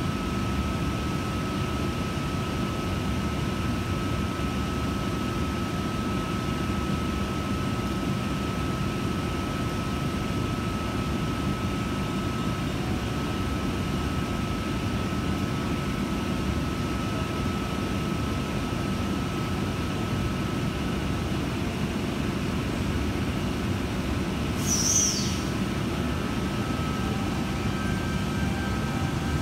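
Sydney Trains double-deck electric train standing at the platform with a steady low hum and rumble from its onboard equipment, with a thin steady whine that fades out about two-thirds of the way through. A brief high falling squeal comes near the end.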